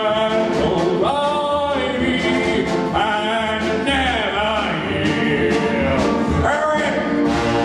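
Male voices singing a show tune over a live pit orchestra, with long held notes.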